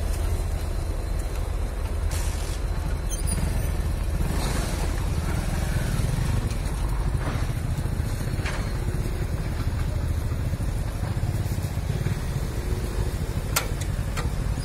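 Diesel locomotive engine running as the locomotive shunts slowly along the yard tracks: a steady low rumble, with a couple of short clicks near the end.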